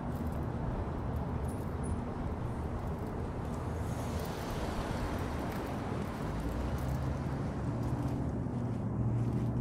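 Steady low rumble of road traffic, with an engine hum growing louder near the end.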